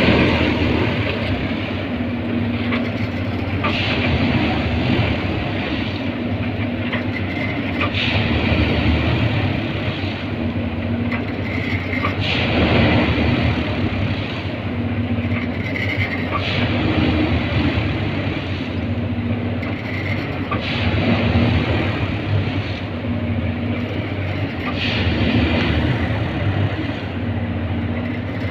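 Diesel engine of a rail track maintenance machine running steadily, swelling louder about every four seconds in a regular working cycle.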